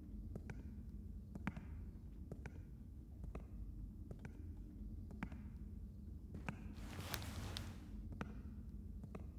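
Slow, evenly spaced footsteps in a hallway, about one a second, over a low steady hum, with a short burst of hiss about seven seconds in.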